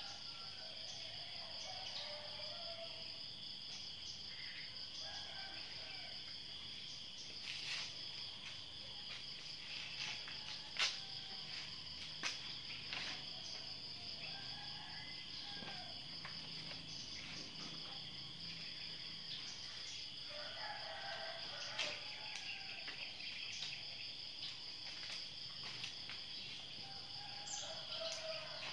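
Steady high-pitched insect drone, with several short calls that rise and fall, a second or two each, and a few sharp clicks, the loudest about eleven seconds in.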